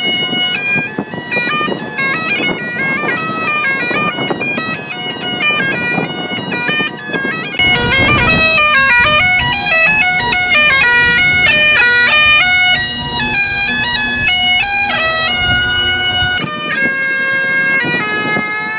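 Bagpipes playing a quick, ornamented melody over a steady drone, growing louder and fuller about eight seconds in.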